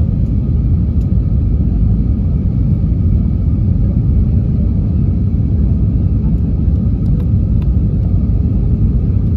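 Steady low rumble inside the cabin of an Airbus A320 airliner in flight on approach: engine and airflow noise heard through the fuselage, even and unchanging.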